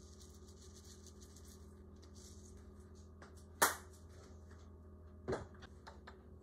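Sesame seeds sprinkled over a rice bowl, a faint crackle, then two knocks of tableware set down on a table, the louder about three and a half seconds in and the second about five seconds in, followed by a few light clicks. A steady low hum runs underneath.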